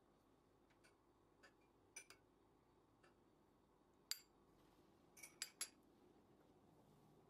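Quiet kitchen with a handful of light clinks and taps of utensils and glassware; the loudest about four seconds in, then a quick run of three clinks a little later.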